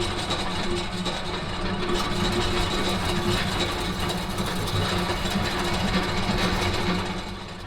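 A machine running steadily with a dense mechanical noise and a low hum, fading out near the end.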